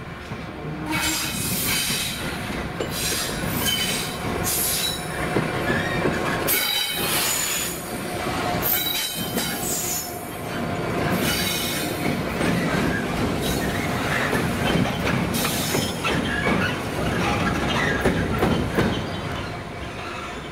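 Two Class 66 diesel locomotives coupled together and running light at low speed, their EMD two-stroke diesel engines running, with high-pitched wheel squeal coming and going as they take the curves and pointwork.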